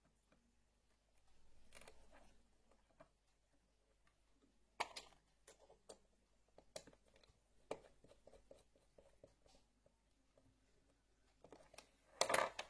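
Sparse small clicks and taps from hands working wire ends into the terminal of a plastic wall socket, with a soft rustle early and a louder cluster of clicks near the end.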